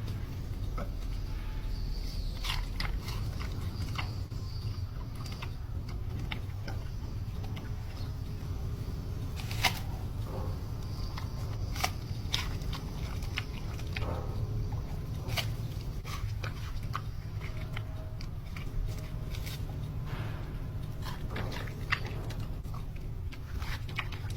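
A panda eating: irregular crunching, cracking and chewing bites, a few of them sharper and louder, over a steady low hum.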